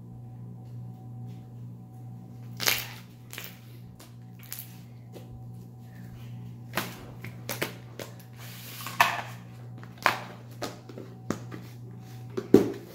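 Glossy slime being stretched and kneaded by hand, giving a string of sharp pops and wet smacks. Near the end a plastic lid is pressed down onto a tub with a loud snap.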